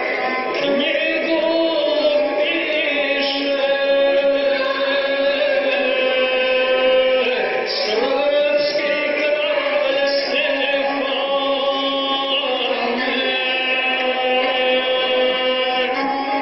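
Gusle, the single-string bowed Serbian folk fiddle, playing a steady, wavering melody under a guslar's chant-like epic singing, heard through a television's speaker.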